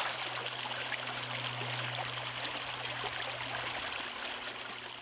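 Steady rushing, water-like noise with a low, steady hum underneath, fading out near the end.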